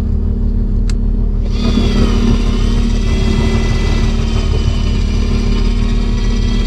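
Shimano Dendoumaru 1000H electric fishing reel winding in line, a steady high motor whine that starts about a second and a half in. Under it runs the boat engine's constant low hum.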